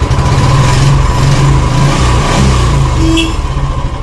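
Royal Enfield 350 single-cylinder engine running just after start-up, revved with the throttle and dropping back to an even thumping idle near the end. It has freshly fitted hydraulic tappets, and the earlier tick-tick-tick is gone.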